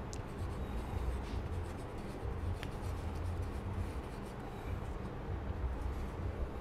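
Pens scratching on paper held on wooden boards as two people write, with a couple of faint clicks and a low steady hum underneath.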